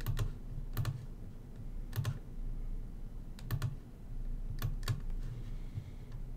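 Computer mouse button clicking: single sharp clicks at uneven intervals, about seven in all, over a low steady hum.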